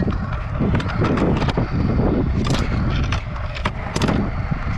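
Stunt scooter's wheels rolling over concrete, a steady rumble, with a few sharp clacks in the second half.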